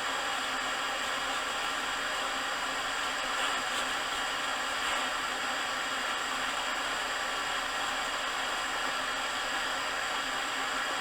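Steady hiss of a Coleman Focus 3 propane heater burning.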